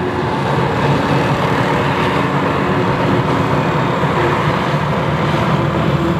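Fendt tractors' diesel engines running hard under heavy load, steady and loud, as several chained tractors pull a loaded silage trailer through deep mud, with tyres churning the mud.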